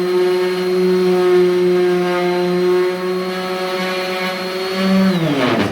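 Electric orbital sander with a 5-inch hook-and-loop disc running steadily while sanding, a motor hum under a rubbing hiss. About five seconds in it is switched off and the motor winds down, its pitch falling.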